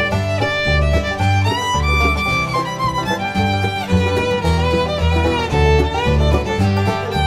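Instrumental break of a bluegrass song: a fiddle plays the melody over a steady, even bass beat.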